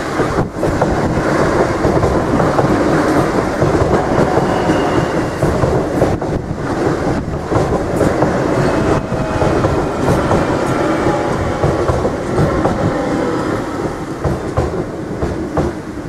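Irish Rail DART electric commuter train passing close by through a level crossing, a loud continuous rumble of wheels on the rails. It eases off slightly near the end as the last carriage clears the crossing.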